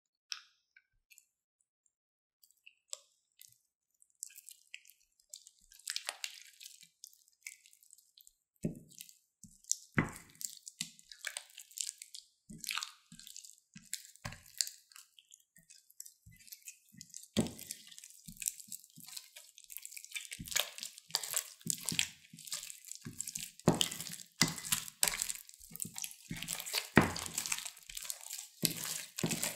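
Slime being worked in a glass bowl, first stirred with a silicone spatula and then kneaded and pulled by hand, as the wet glue mixture thickens into stringy slime. It gives sticky, wet clicks and squelches that start sparse and become dense and continuous from about halfway through.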